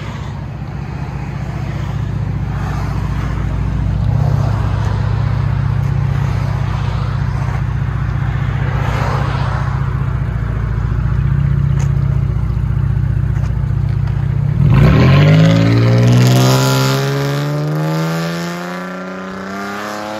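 2014 Dodge Charger's 3.6-litre V6 idling steadily through a true dual exhaust with Dynomax Race Bullet resonators. About fifteen seconds in, the car pulls away and accelerates, the exhaust note rising steadily in pitch.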